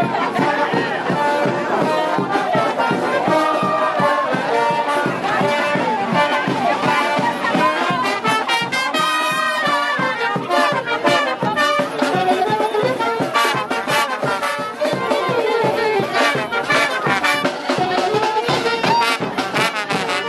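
Street brass band playing: trombones, trumpets and saxophones over a snare drum keeping a steady, quick beat.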